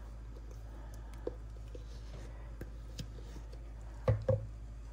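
A metal spoon clicking faintly as it scoops Nutella out of a glass jar, then two quick knocks close together near the end, over a steady low hum.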